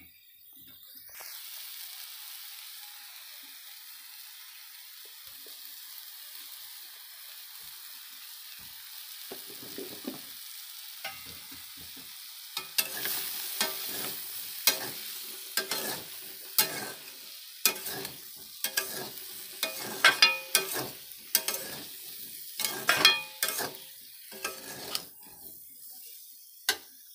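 Soya chunks and potatoes sizzling in oil in a metal pan, a steady hiss. From about halfway through, a spatula stirs them, scraping and knocking against the pan about once or twice a second.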